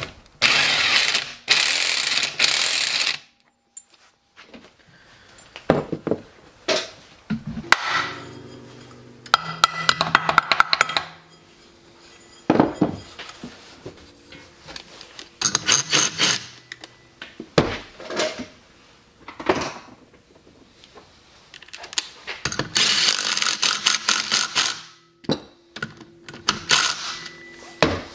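Cordless power driver run in repeated bursts of a few seconds, driving bolts and nuts during reassembly of a small engine. The longest runs come near the start and about two-thirds through, with short metallic knocks and clatter of tools and parts between them.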